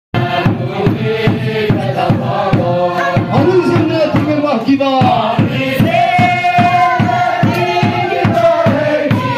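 A congregation singing a hymn together in unison, over a hand-beaten barrel drum keeping a steady beat of about two strokes a second.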